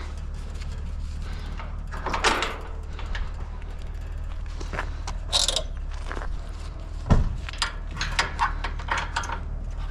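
Scattered knocks, rattles and clanks of a metal barbecue being handled and loaded as scrap, with a sharp knock about seven seconds in, over a steady low engine hum.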